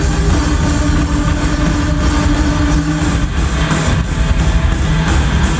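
Rock band playing live at full volume: electric guitars, bass guitar, drums and keyboard, with a held low note for the first three seconds before the part changes.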